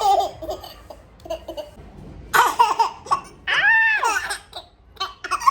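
A small child's high-pitched squealing cry, one arching call a little after halfway, with shorter vocal bursts and laughter around it.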